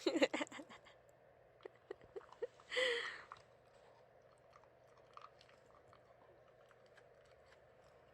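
Beagle chewing and crunching food: a quick run of crunches in the first second, a few more around two seconds, and a short breathy burst near three seconds, then only faint occasional ticks.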